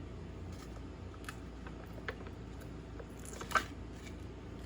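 Light handling noises at a kitchen counter: a few soft clicks, then a short, louder rustle about three and a half seconds in, over quiet room tone.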